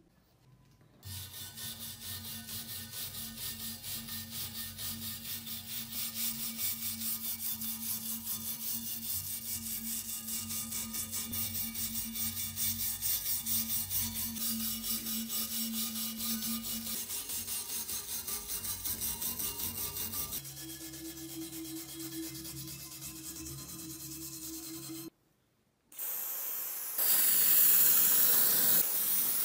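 Hand wire brush scrubbing a rusty steel cleaver blade in rhythmic back-and-forth strokes, the tone of the strokes changing about two-thirds of the way through. Near the end, a steady hiss of liquid sprayed onto the steel in a fine jet.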